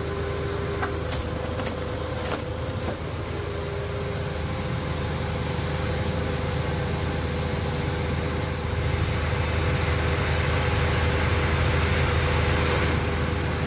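Firewood processor running: a steady engine drone with a constant hum, and a few sharp knocks of wood between about one and two and a half seconds in.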